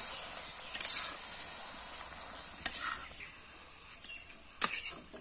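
Metal spatula stirring and turning leafy greens in a steaming aluminium pot, over a steady hiss from the hot liquid; the spatula clicks and scrapes against the pot a few times, the loudest knock near the end. The hiss thins out after about three seconds.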